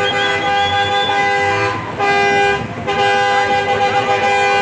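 Semi-truck air horns blowing in long, loud blasts, several steady pitches sounding together. The blasts break off briefly twice, just under two seconds in and again near three seconds.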